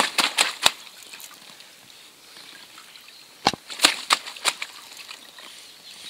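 Water splashing and slapping in a wet carp cradle, in two bursts of sharp splashes: one at the start and another about three and a half seconds in.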